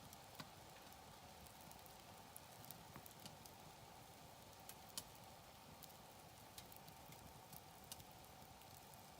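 Campfire crackling faintly: irregular sharp pops and ticks of burning wood over a low steady hiss, the loudest pop about five seconds in.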